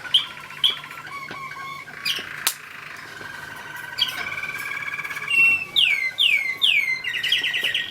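American Singer canaries singing: rolling trills with a few sharp chips. A little before the end come three loud, falling whistled notes, followed by a fast trill.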